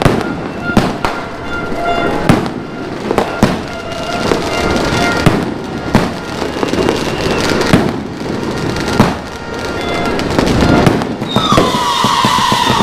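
Fireworks going off: a string of sharp bangs, one every half second to a second, over a steady din of other explosions. About eleven seconds in, a loud whistle starts, falling in pitch and then holding.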